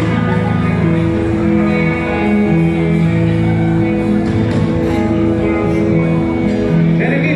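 Guitar-led music playing at a steady level, with long held chords that change every second or so. Near the end a voice comes in over it.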